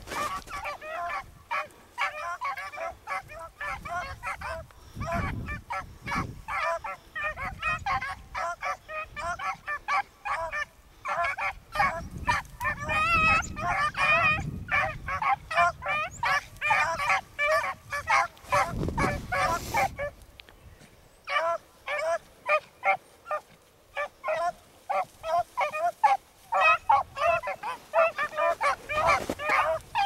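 A pack of beagles baying in chorus as they run a rabbit track, many overlapping short bawls a second. The baying breaks off briefly about two-thirds of the way through, then picks up again. Low gusts of wind buffet the microphone now and then.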